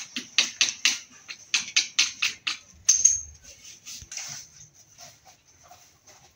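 A quick run of sharp clicking taps of hard objects, about five a second, for the first two and a half seconds. About three seconds in comes a louder click with a brief high ring, then fainter, scattered taps.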